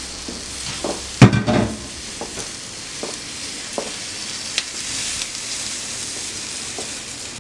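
Tomatoes and tomatillos sizzling as they roast on a hot griddle. There is a steady hiss, a loud knock about a second in, and a few lighter taps as they are moved about.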